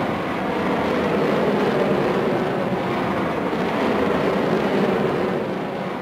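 Bullet-time sound effect: a steady, rough rushing rumble, like a slowed-down swoosh, held without clear strikes or pitch.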